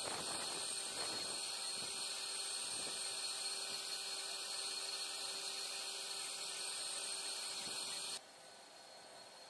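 Steady hiss with a high, even whine, the noise of aircraft turbines running on a carrier flight deck. It drops abruptly to a quieter hiss near the end.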